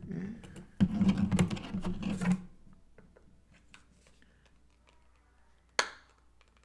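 Hard plastic clicking and rattling as an action figure is worked onto its display base and foot peg, busiest for a couple of seconds about a second in, then one sharp click near the end.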